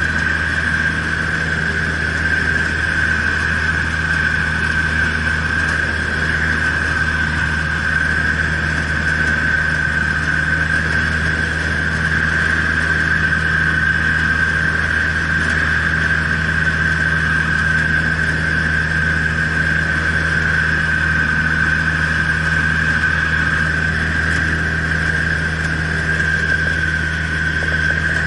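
Socata Rallye Commodore 150's four-cylinder Lycoming piston engine and propeller in a steady drone at takeoff power, heard inside the cockpit.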